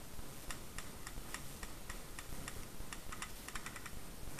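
Airsoft gun firing a series of single shots, sharp clicks at about three a second, quickening to about six or seven a second near the end.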